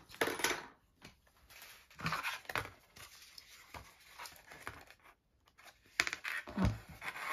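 Stiff cardstock sign and a hand-held hole punch being handled on a cutting mat: the paper rustles and scrapes in a few short bursts, with a soft knock near the end.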